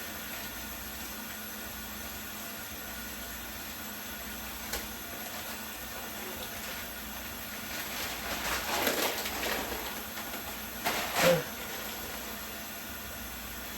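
Handling noises over a steady hiss, most likely spoiled food and containers being pulled from a refrigerator and thrown out: a rustling, clattering spell a little after halfway, then one sharp knock, the loudest sound.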